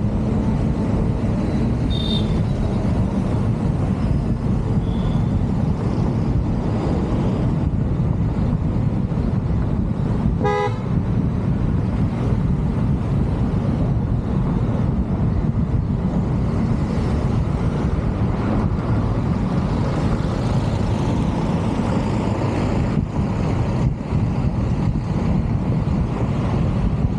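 Steady low rumble of road noise from a car driving along a city road, with one short car horn beep about ten seconds in.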